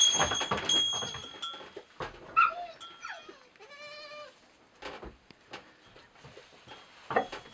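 Newborn goat kids bleating: a few short high bleats about two seconds in, then one longer, wavering bleat around four seconds in. Scattered rustles and knocks.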